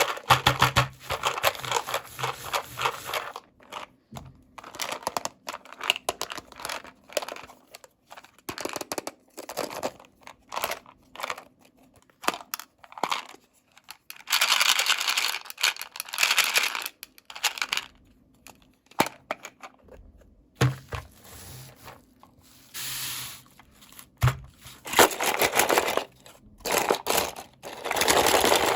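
Toy packaging being torn and crinkled open by hand: irregular bursts of tearing and rustling with small clicks and taps in between, loudest around the middle and again near the end.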